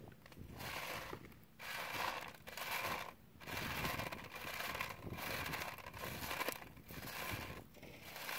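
Dug dirt and gravel being shaken and worked across a hand sifting screen in a series of noisy strokes about a second long with short breaks between them.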